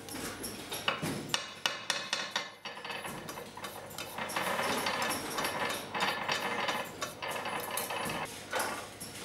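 Sharp taps and knocks of a brass strip and hands on a wooden workbench, then a comb scratching repeatedly through a flat layer of brush hair for a few seconds, with a few more knocks near the end.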